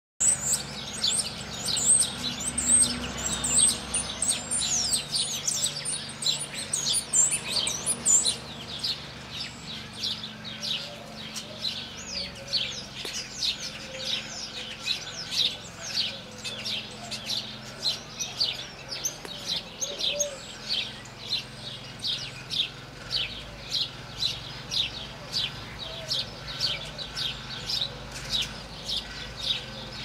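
A songbird singing. For the first several seconds it warbles varied notes with whistled glides; after that it gives a long, even run of short falling chirps, about two a second.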